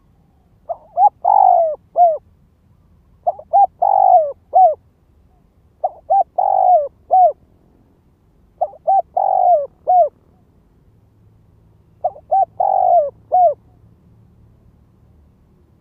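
Spotted dove cooing: five repeated phrases, each a couple of short notes, a longer falling coo and a short closing note, coming about every two to three seconds. This is the male's crowing call, used here as a decoy to provoke and lure wild doves.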